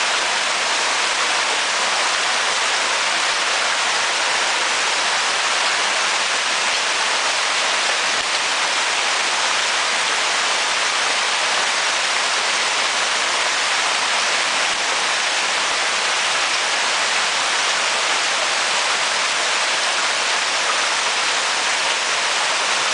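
Hailstorm pelting down hard: a dense, steady hiss of hailstones striking lawns, pavement and roofs, without let-up.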